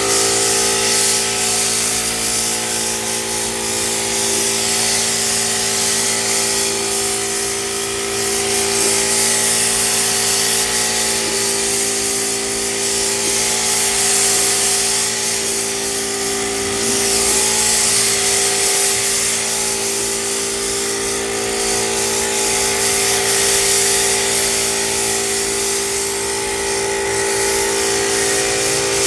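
Air-fed gravity-cup paint spray gun hissing as it sprays paint onto car body panels. The hiss swells and eases with each pass over a steady machine hum.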